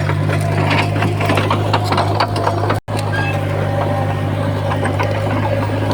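The diesel engine of heavy earthmoving machinery running steadily, with rapid metallic clanking and rattling over the low hum. The sound breaks off for an instant near the middle and carries on.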